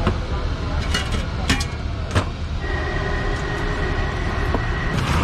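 Steady low rumble of street traffic with a few sharp clinks in the first two seconds. From about two and a half seconds in, a steady high whine sounds until shortly before the end.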